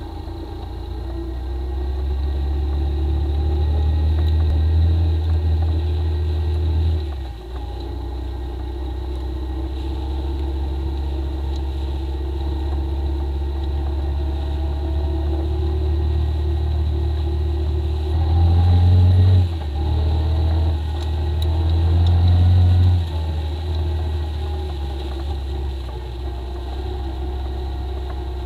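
Suzuki Ozark ATV's single-cylinder four-stroke engine running under way, pulling under throttle in surges that are cut back sharply about a quarter of the way in and twice after the middle.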